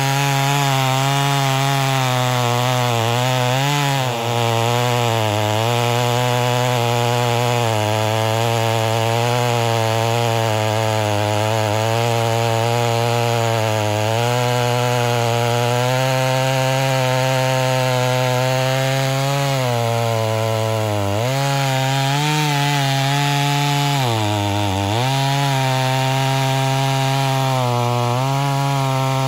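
Ported Homelite Super XL Auto two-stroke chainsaw running at high revs under load as its chain cuts through a large log. The engine pitch wavers through the cut and drops sharply for a moment a few seconds in, and twice more near the end, as the load comes on.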